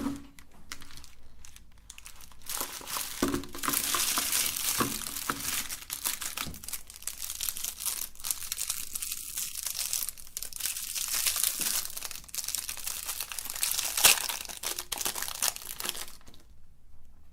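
Dense crinkling and crunching of colourful candy, full of small sharp cracks with one louder crack near the end, stopping abruptly about sixteen seconds in.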